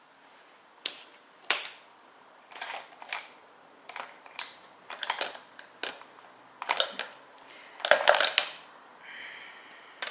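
Irregular clicks and clatter of makeup products and brushes being handled on a table: hard plastic cases knocking and clicking as they are picked up and set down, busiest a couple of seconds before the end.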